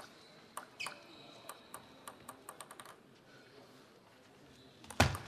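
Table-tennis ball clicking as it is tossed and bounced between points; about two seconds in, it bounces in a quick, speeding-up run of clicks as it settles. A louder knock comes near the end.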